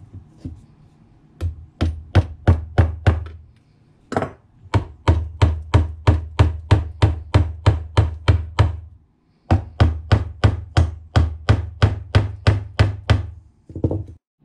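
Claw hammer tapping small nails into a walnut slab to fix a hanger on its back: quick, even strikes at about three a second, in three runs with short pauses between.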